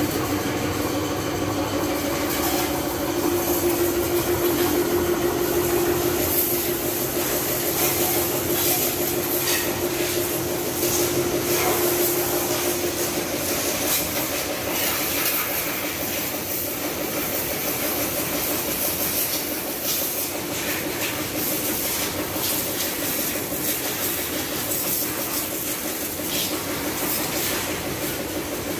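Pressure washer running: the pump motor's steady, rapidly pulsing hum under the hiss of a high-pressure water jet spraying over a motorcycle. The hum is strongest in the first half and eases off about 13 seconds in.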